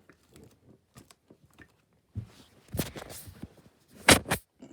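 Plastic box fan being handled and turned: a few faint ticks, then from about two seconds in a run of clicks and rustles, with two sharp knocks close together near the end.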